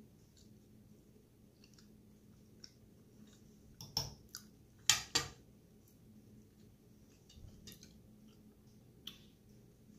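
Metal fork and knife clicking and scraping against a plate while cutting food, with soft chewing in between; three sharp clinks, close together about four to five seconds in, are the loudest.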